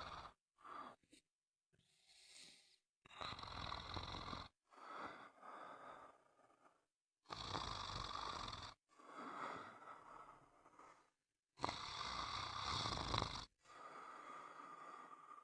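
Steady snoring, about one breath every four seconds: a loud rasping snore followed by a softer, longer breath, repeating.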